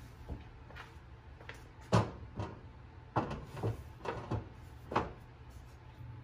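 A series of knocks and thuds as a heavy wooden cutting board is handled and set down on a counter, over a steady low hum.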